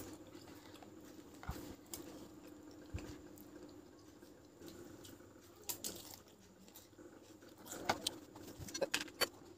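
Quiet chewing and soft mouth sounds, with a few light clicks of a metal fork and spoon in a paper cup, more of them near the end.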